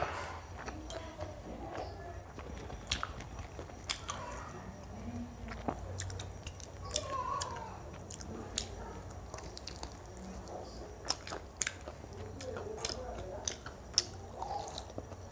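Close-up eating sounds of fried chicken being chewed and bitten: wet chewing with scattered sharp crunches and clicks. The loudest is a bite near the end.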